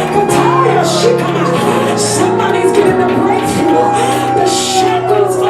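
Church worship music: sustained keyboard chords with a soloist singing long, gliding notes over them and a cymbal struck about once a second.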